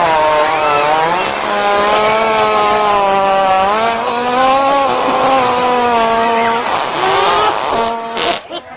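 A hippopotamus passing a long, loud fart: a continuous buzzing tone whose pitch wavers slightly, breaking up and stopping about eight seconds in.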